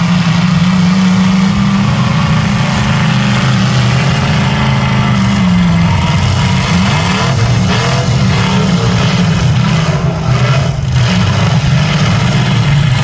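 Engines of several demolition derby stock cars running together in a loud, steady drone, revving up and down in pitch midway. A few sharp knocks come about ten seconds in.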